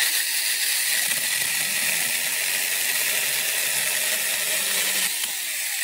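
MIAN MU 48V cordless 6-inch mini chainsaw running at full speed, its chain cutting through a branch. A steady high-pitched whir that starts abruptly and eases slightly about five seconds in.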